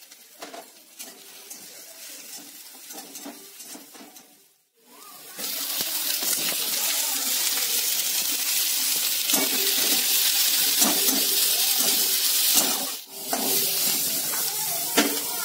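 Chopped garlic sizzling gently in hot oil in a metal wok, then, about five seconds in, a much louder steady sizzle as shredded cabbage fries in the wok, with occasional scrapes of the spatula.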